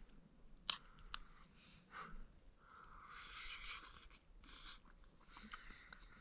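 Faint sounds of a person eating: a few sharp clicks in the first second or so, then chewing.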